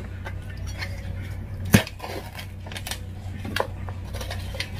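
Crisp stacked potato chips and a cardboard chip canister being handled over a ceramic plate: a few separate sharp clatters and clicks, the loudest a single knock about two seconds in.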